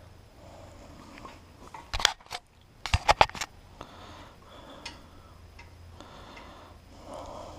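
Sharp clicks and knocks from hands handling small parts: a pair about two seconds in and a quick run of three or four a second later. Between them there is faint rustling of wires being handled.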